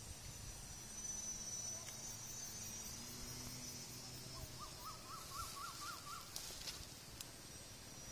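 Outdoor ambience of birds and insects: a steady high insect whine in the first half and a bird calling a quick run of about seven rising notes midway, over a faint low drone.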